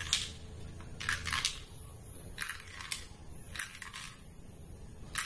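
Small plastic balls loaded by hand into a plastic toy ball-shooter gun's magazine opening: a few light, separate plastic clicks and taps spread out over several seconds.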